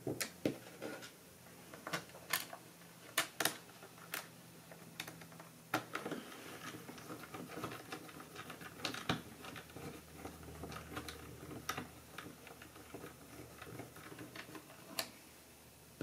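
Small screwdriver driving screws into a laptop's plastic base, with irregular light clicks and taps of the driver, screws and plastic case; a cluster of sharper clicks a few seconds in.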